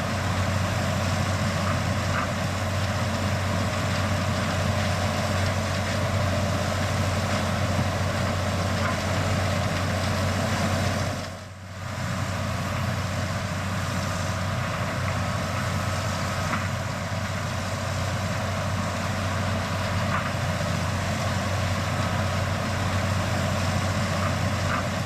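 John Deere 8820 Titan II combine running steadily while harvesting corn, a constant low engine drone with machinery noise over it. The sound drops out briefly near the middle.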